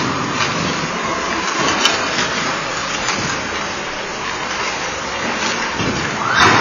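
Ice rink during hockey practice: a steady hiss of many skate blades scraping the ice, with scattered clicks of sticks and pucks. A louder short scrape comes near the end.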